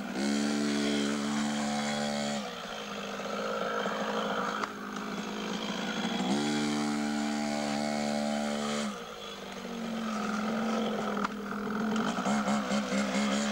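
Beta 50cc two-stroke minitrial motorcycle engine revving. It is held at a steady pitch for a couple of seconds, drops back, and is held again for a few seconds about six seconds in. Near the end the revs rise and fall quickly as the throttle is worked.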